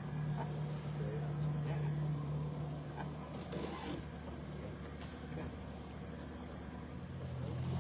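Small boat's motor running steadily at low speed. Its hum eases about three seconds in, then settles to a lower but louder note near the end.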